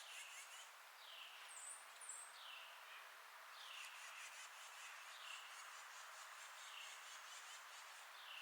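Faint forest ambience: a bird repeats a short call that falls in pitch, about once a second, over a steady hiss with faint high insect buzzing, and two quick very high chirps about two seconds in.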